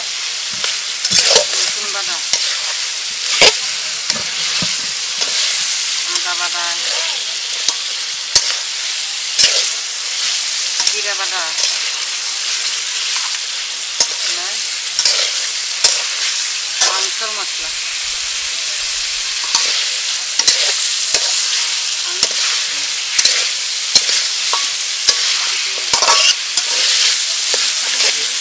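Beef curry frying in a large metal karahi: a steady sizzle, broken by sharp irregular knocks and scrapes of a metal spatula against the pot as the meat and spice pastes are stirred.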